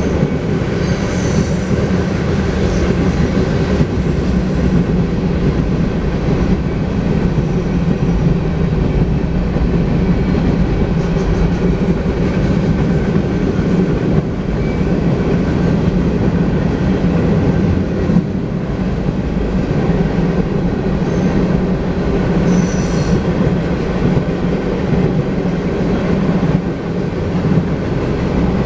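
Manifest freight train's cars rolling past at speed: a steady rumble and clatter of steel wheels on the rails, with a few brief high wheel squeals.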